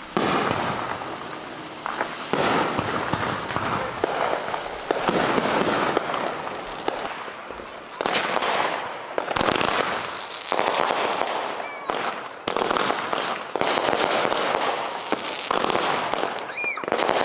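Consumer fireworks going off: a rapid string of bangs from aerial shells, with crackling and the hissing spray of a ground fountain between the reports.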